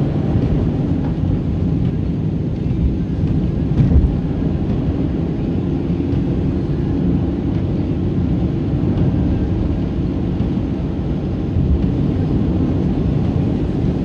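Steady road noise of a car driving on a snow-covered highway, heard from inside the cabin: tyre and engine rumble, with a brief louder bump about four seconds in.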